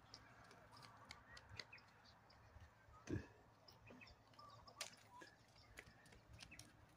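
Near silence: faint ambience with scattered small ticks, and one brief louder sound about three seconds in.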